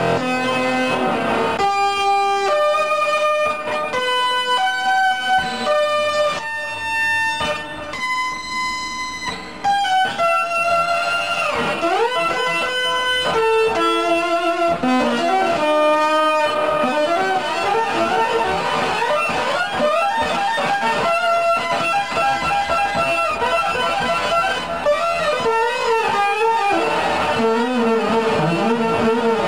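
Electric guitar played with the fingers, no pick, in an oriental-style solo. It opens with long single notes held about a second each, slides up in pitch a little over a third of the way in, then moves into fast runs with wavering bends.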